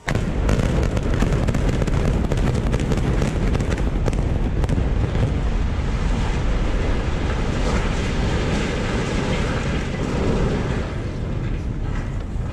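Building implosion: a rapid string of sharp cracks from the explosive demolition charges begins suddenly and merges into the heavy rumble of a multi-storey office building collapsing. The cracks thin out after about five seconds and the rumble slowly fades.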